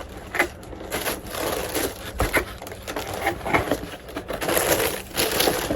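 A cardboard shoebox being opened and handled by hand: irregular rustling, scraping and small knocks of cardboard and paper.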